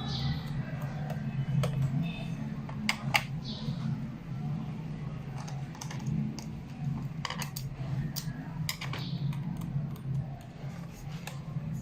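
Scattered light clicks and taps as a screwdriver undoes screws on the underside of a laptop's plastic case, over a steady low hum.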